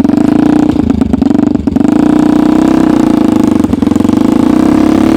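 Homemade snowmobile's engine running steadily under load as the machine drives off, its pitch dipping slightly about two seconds in. A few short knocks sound over it.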